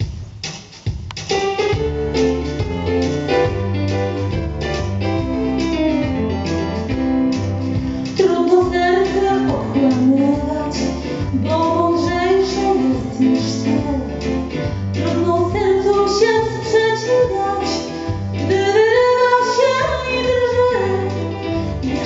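A woman singing a song into a microphone over instrumental accompaniment. A ticking beat opens, bass and chords come in about a second in, and her voice enters about eight seconds in.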